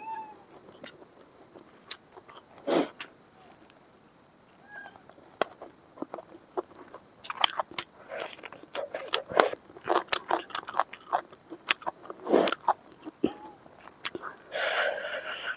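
Close-up eating sounds: bites into a fried chicken leg and chewing with rice, sparse at first, then a busy run of crunchy bites and chews from about halfway. A few faint short chirps sound in the first seconds.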